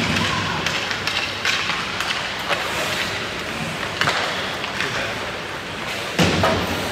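Ice hockey on a rink: sharp knocks of pucks striking sticks and boards every second or two over a steady hiss of skates on the ice, the loudest knock near the end.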